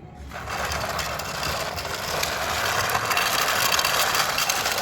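Toy tractor being driven along: a steady, noisy rolling and whirring that starts just after the beginning and grows a little louder.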